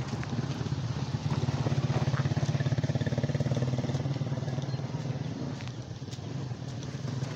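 Small motorcycle engine running steadily at cruising speed, a low pulsing hum with road and wind noise, easing off slightly past the middle.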